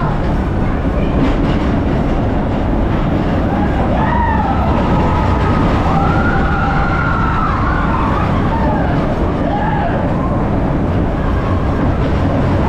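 Vekoma roller coaster train running fast along its track with a heavy steady rumble, over which several riders scream and whoop in overlapping rising and falling cries, thickest in the middle of the stretch.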